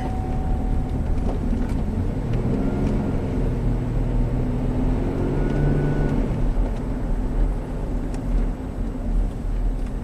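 A Chevy Traverse's 3.6-litre direct-injection V6 pulling under load up a hill, heard inside the cabin over road noise, its pitch rising and falling, with an occasional rattle. The engine is setting misfire codes and a bank-one intake cam timing (P0011) code.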